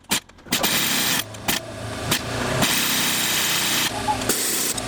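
A motor running steadily, with a few knocks in the first couple of seconds.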